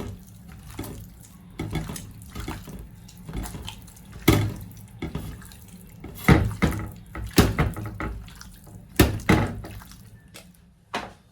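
Hands mixing and squeezing chicken pieces in a wet batter of beaten egg, cornflour and wheat flour in a bowl: irregular wet squelches and knocks, the loudest about four, six, seven and nine seconds in.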